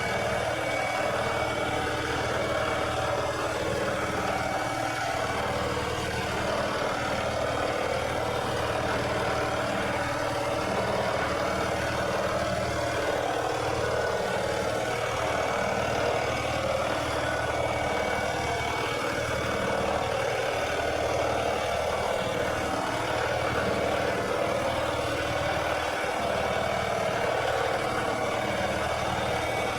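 Lawnmower engine running steadily at a constant speed.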